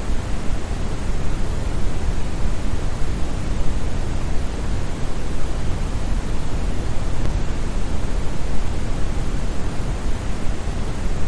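Brown noise: a steady, even, deep hiss with most of its energy in the bass and little in the treble, like a distant waterfall.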